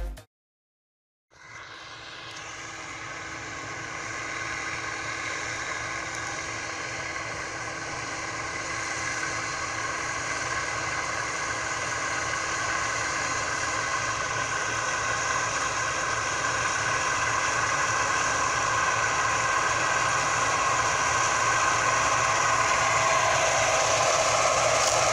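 Bizon ZO56 Super combine harvester running under load as it cuts triticale, a steady machine drone with several fixed humming tones. It sets in about a second in and grows steadily louder as the combine approaches.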